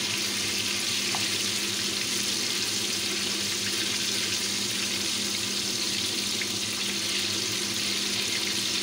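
Bread slices coated in egg deep-frying in a pan of sunflower oil: a steady sizzling hiss, with a faint low hum underneath.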